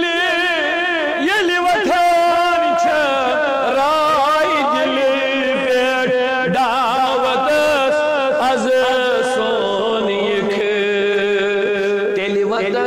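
A man's voice singing a long, ornamented devotional melody in the style of a naat, with heavy vibrato on held notes. It sounds over a steady low hummed drone.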